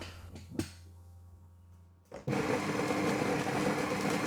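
The built-in coffee grinder of a La Seine X espresso machine switches on with a click about two seconds in and runs steadily, grinding beans on an automatic cycle.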